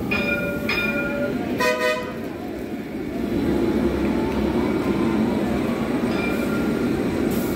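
Light-rail tram sounding three short horn toots in the first two seconds, then running past close by with a steady low rumble.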